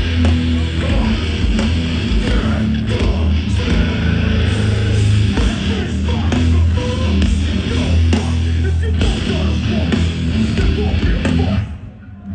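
Live hardcore band playing loud, heavy guitar music with a strong low end. The music cuts off sharply near the end.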